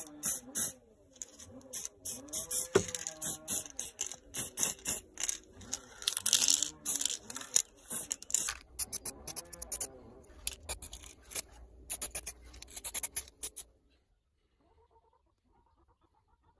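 Rapid short bursts of spray hiss, a spray being applied in quick pulses over two steel vise jaw plates, stopping abruptly a couple of seconds before the end.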